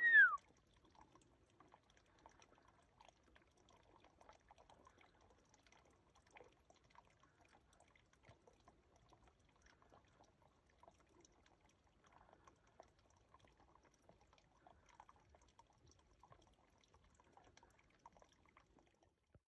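A single short whistle-like call sliding down in pitch right at the start, followed by very faint scattered rustles and ticks.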